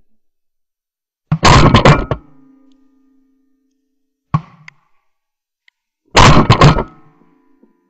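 Two shotgun blasts from a Benelli shotgun at close range, about five seconds apart, each very loud with a short ringing tail. A single sharp click falls between them.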